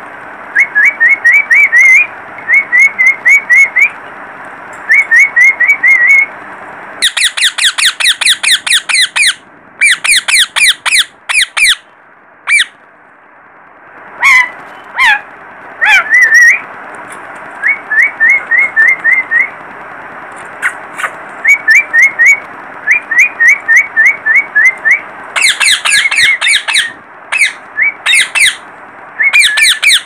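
Lutino Indian ringneck parakeet calling in quick runs of short rising chirps, four or five at a time, over a steady background hiss. Louder, rapid bursts of squawking calls break in about seven seconds in and again near the end.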